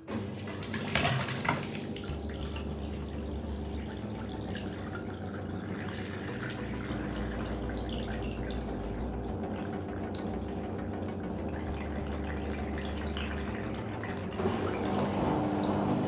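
LG WD-12380FBN washing machine's drain pump running with a steady hum, pushing water out of the drain hose so it splashes into a basin. About fourteen seconds in the hum gets louder as the water runs out.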